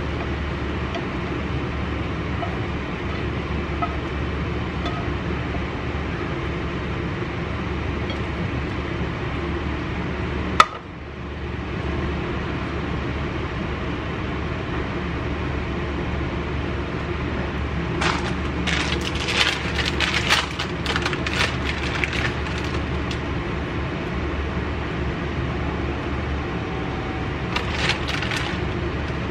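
Steady low hum and hiss of a kitchen room, with one sharp click about a third of the way in. Later come bursts of light clicking and clinking from utensils against a ceramic plate as pasta is served.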